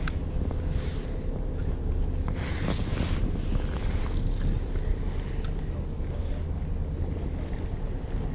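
Fishing boat's engine running with a steady low hum, wind buffeting the microphone over it, a brief rush of wind about two and a half seconds in and a couple of sharp clicks.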